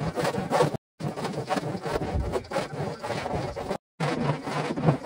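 Hand plane shaving wood in quick, sped-up scraping strokes, broken by two brief silent cuts, about a second in and near the end.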